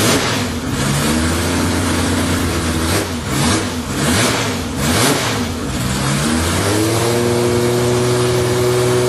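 Ferrari 365 GT 2+2's V12 engine revving, its pitch rising and falling in several quick throttle blips. About two-thirds of the way through it climbs to a higher engine speed and holds there steadily.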